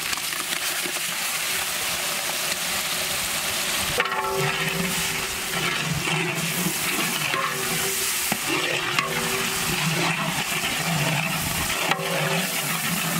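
Green coriander, mint and green chilli paste frying in hot oil with onions in a large metal pot: a steady sizzle, while a metal ladle stirs and scrapes the pot in repeated strokes.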